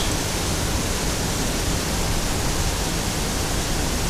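Steady rushing noise of moving water, ocean surf and a nearby waterfall, unbroken and even.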